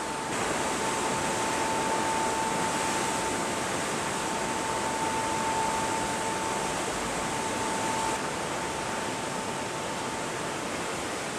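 Steady rushing noise of wind and the carrier's churning wake at the open stern deck of a US aircraft carrier in a high-speed turn, with a constant high-pitched hum running through it. The rush drops a little about eight seconds in.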